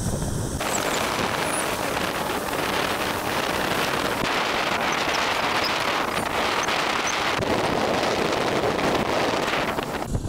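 Komatsu hydraulic excavator running steadily while it pushes a boat's stern with its bucket, under a steady rush of wind on the microphone.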